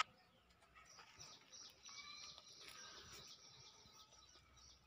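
Near silence, with a few faint bird chirps in the background.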